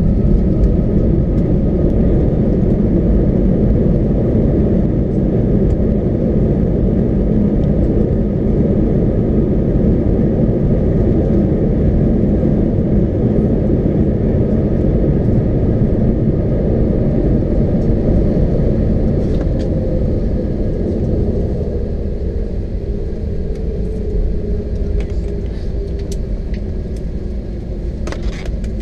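Cabin rumble of an Airbus A321 slowing on the runway after landing: the landing gear rolling and the engines running, fading gradually as the aircraft decelerates. A faint tone slides slightly lower in the last few seconds.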